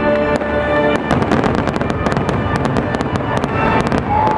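Fireworks crackling and popping in quick, dense strings from about a second in, over loud show music with held notes.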